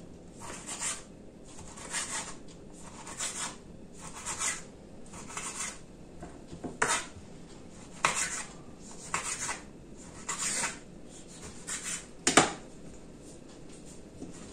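Kitchen utensils working on dishes during food preparation: a run of short scraping strokes, about one or two a second and sometimes in pairs, with a few sharp clinks, the loudest about twelve seconds in.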